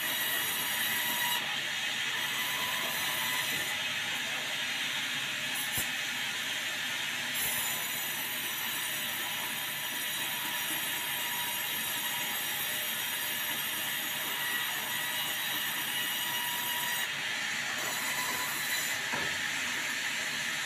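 Band sawmill running steadily while sawing white meranti into boards: a constant, even machine noise with a faint steady whine from the saw.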